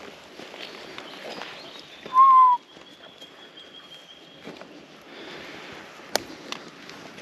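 A single clear whistled note about half a second long, dropping slightly in pitch at its end, a couple of seconds in. Soft rustling runs around it, and a sharp click comes near the end.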